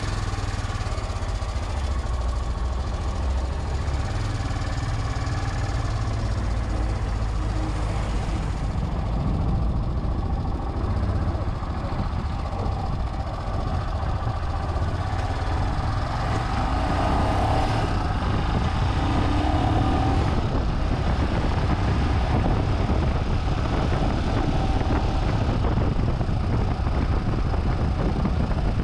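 Royal Enfield Himalayan's single-cylinder engine idling, then running as the bike rides through city traffic, recorded by a chest-mounted GoPro with no external microphone.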